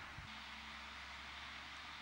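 Steady background hiss and low rumble, like distant traffic, with a soft low thump about a quarter second in, after which a faint steady hum sets in.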